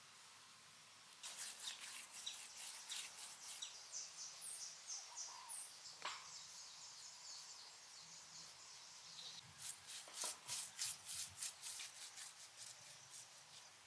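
A paintbrush scrubbing white paint onto a mud roof: quick scratchy brush strokes, about three or four a second, in two spells, with faint high chirps in the pause between them.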